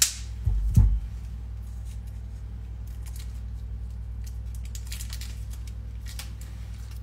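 Plastic wrapper being peeled and crinkled off a block of cheese by hand, in short scattered rustles, with a dull thump just under a second in.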